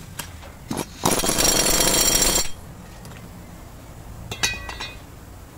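An impact wrench hammering for about a second and a half on the pulley nut of a power steering pump, while a pulley holder keeps the pulley from turning. A short metallic clank with a brief ring follows about four seconds in.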